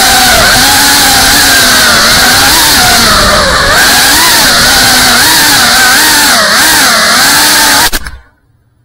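GEPRC CineLog 35 cinewhoop's brushless motors and propellers whining loudly close to the onboard camera, the pitch rising and falling over and over with the throttle. The whine cuts off suddenly about eight seconds in as the quad lands.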